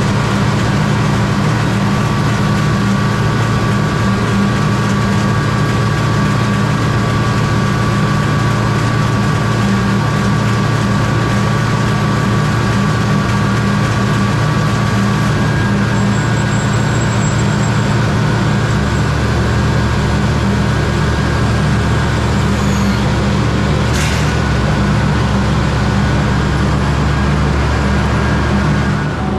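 Large harvest machine's diesel engine running steadily, with a thin steady whine over it. A deeper rumble joins about two-thirds of the way through, and there is one brief click near the end.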